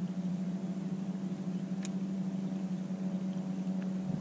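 Electric trolling motor humming steadily, with a single light click about two seconds in.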